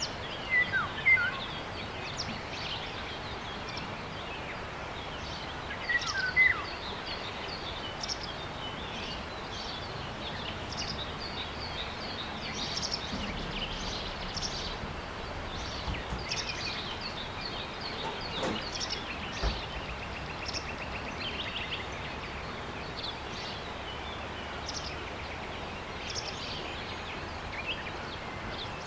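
Outdoor ambience of many small birds chirping and calling over a steady background hiss, with louder, falling two-note calls about a second in and again about six seconds in.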